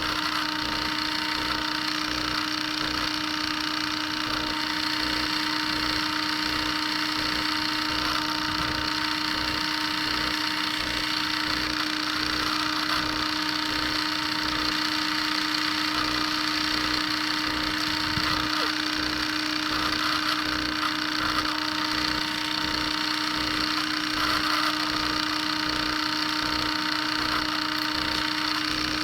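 Small handheld rotary engraver (mini drill) running steadily at high speed with a constant whine, grinding away part of the copper shielding trace on the key fob's circuit board.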